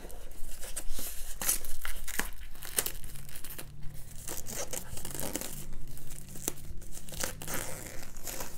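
Plastic shrink wrap being torn and peeled off a cardboard box set, with irregular crinkling and crackling.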